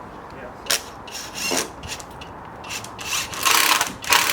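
A tool rasping on timber in a series of irregular strokes, as a wooden concrete tamp is being made.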